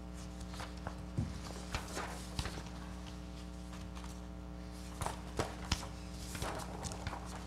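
Scattered faint taps and small knocks of papers and hands handled at a desk microphone, with a cluster of them past the middle, over a steady electrical hum.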